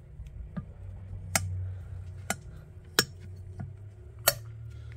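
About half a dozen sharp, scattered clicks and taps as fingers touch the valve heads in a bare aluminum cylinder head, over a low steady hum.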